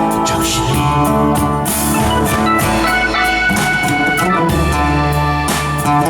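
Band music in a blues style: an instrumental passage with a drum kit and sustained chords, between sung lines.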